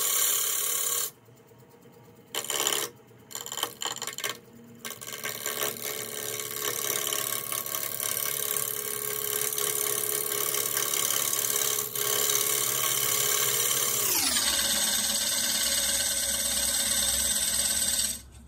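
Half-inch swept-back bowl gouge cutting into a walnut-and-cherry bowl blank spinning on a wood lathe at about 550 RPM. A first cut stops about a second in, a few short passes follow, then one long continuous cut whose pitch drops once about fourteen seconds in and stops abruptly near the end.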